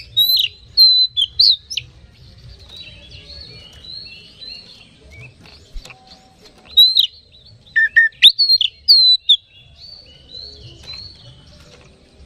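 Oriental magpie-robin singing: loud, clear whistled notes in two bursts, near the start and again from about seven to nine seconds in, with softer, quicker warbling in between.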